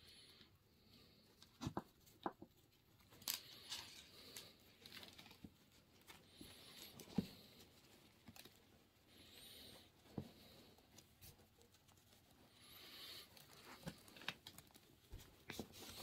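Faint rustling and sliding of nylon tubular webbing and paracord as the cords are pulled through the webbing with a wire threader, with a few light clicks along the way.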